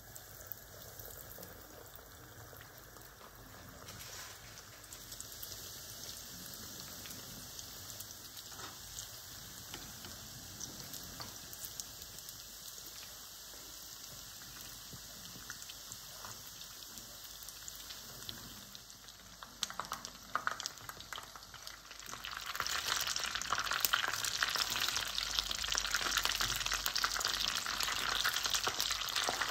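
Panko-coated bread dough frying in a pan of hot oil: a steady sizzle and crackle of bubbling oil, which steps up noticeably louder about two-thirds of the way through.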